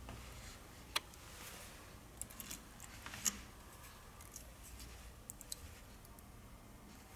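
Scattered light clicks and taps from handling small tools and phone parts, the sharpest about a second in and about three seconds in, over a faint steady hum.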